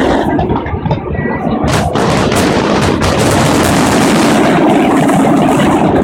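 Fireworks going off: a run of sharp bangs in the first two seconds, then a dense, steady noise that holds to the end.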